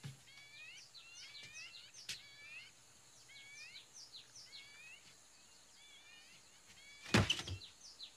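Jungle birds chirping, a steady run of short, curving chirps over a quiet background. A sharp click sounds about two seconds in and a loud thud about seven seconds in.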